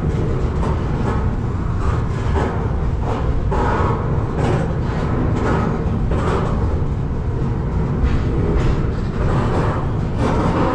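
Moving BNSF freight train heard from aboard: a loud, steady low rumble with rushing, rattling surges about every second.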